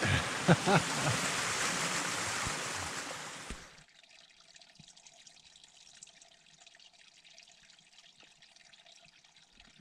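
Water from a small waterfall rushing steadily, then dropping suddenly about four seconds in to a faint trickle of a shallow stream over mossy rocks.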